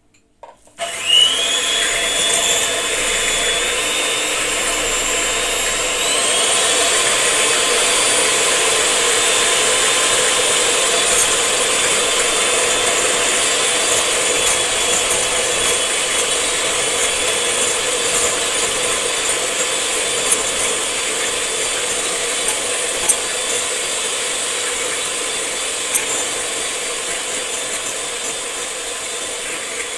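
Electric hand mixer switched on about a second in and running steadily, its beaters whisking egg, sugar and vanilla; the motor's whine steps up in pitch about six seconds in. A few light clicks near the end.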